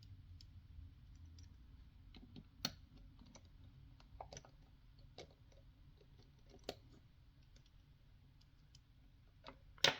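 Faint, irregular small clicks and taps as a small Phillips screwdriver works the two tiny screws out of the joystick inside a Nintendo Switch Joy-Con, with a few sharper clicks a second or two apart.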